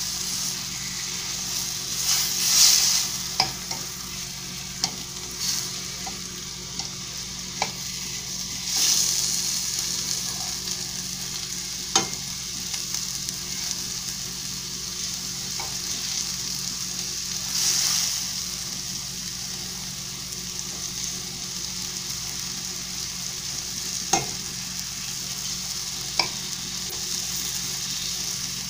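Lamb tenderloin frying in curry-seasoned oil in a stainless steel pan: a steady sizzle that swells now and then as the meat is turned, with occasional sharp clinks of a metal fork against the pan.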